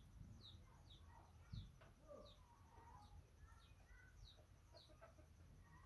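Faint high bird chirps, each falling quickly in pitch, repeated about every half second against near silence.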